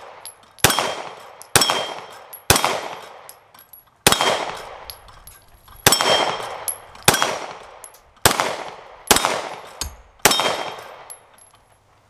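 Nine single shots from a Bul Armory Axe FS Hatchet 9mm pistol, fired about a second apart with a couple of slightly longer pauses. Several shots are followed by the brief ring of a steel target plate being hit.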